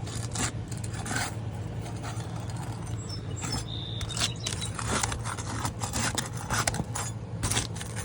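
Irregular scraping and light clinking as asphalt roof shingles and hand tools are worked at to loosen a shingle for removal, over a steady low hum.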